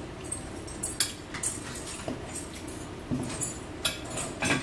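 Scattered light clicks and clinks of a metal fork against a plastic dinner plate as the plate is handled, with soft close-up eating noises.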